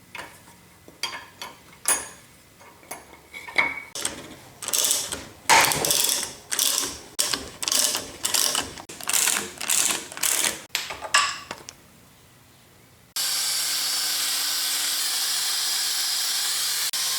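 Ratchet wrench clicking through repeated strokes as it turns a homemade bridge-type gear puller, pulling bearings out of a woodworking planer's table gibs. The clicking stops, and about four seconds before the end a steady hiss with a low hum comes in suddenly.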